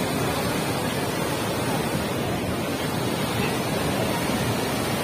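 Flood water rushing out through a dam's open spillway gates: a steady, unbroken rush of water.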